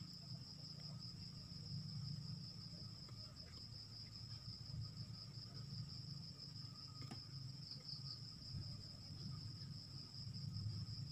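Faint, steady high-pitched insect chirring, with soft handling of a flat LVDS ribbon-cable connector and one small click about seven seconds in.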